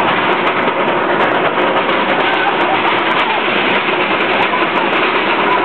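Nitro's roller coaster train climbing its chain lift hill: a loud, steady rumble and clatter of the lift.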